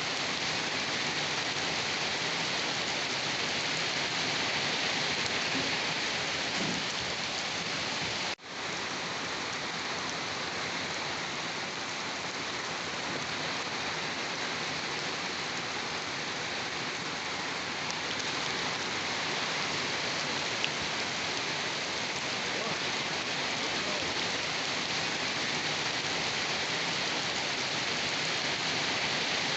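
Steady rain falling, an even hiss of rain on a surface, which cuts out for an instant about eight seconds in.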